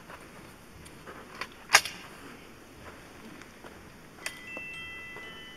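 A single rifle shot about two seconds in: an SKS firing Chinese steel-jacketed 7.62x39 FMJ surplus at a cast iron engine block. Faint chime-like tones begin near the end.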